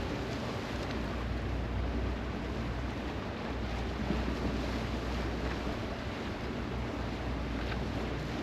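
Steady wind buffeting the microphone with a low rumble, and the sea washing against the shore behind it.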